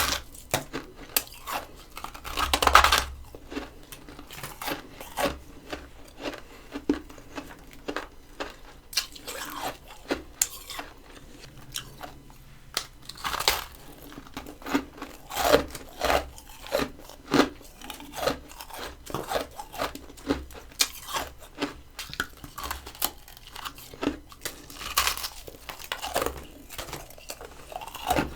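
Close-up crunching and chewing of freezer frost grown with a humidifier. Two loud, longer crunches come in the first three seconds, then a steady run of short, sharp crunches about one or two a second as the frost is chewed.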